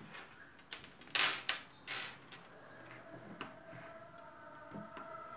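A few short clicks and scrapes of plastic craft items being handled and cut at a table, with a faint steady tone in the background during the second half.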